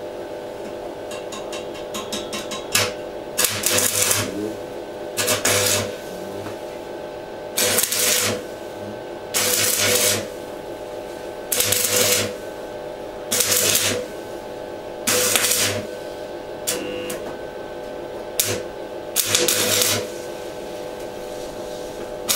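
Electric arc welder tack-welding steel grate bars: about ten short bursts of arc crackle, each about half a second long, coming roughly every two seconds over a steady hum.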